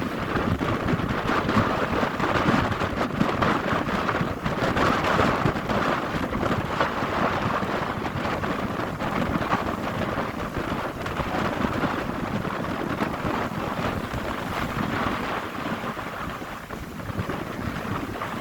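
Steady rushing noise of a passenger river boat under way, its engine and water mixed together, with wind buffeting the microphone.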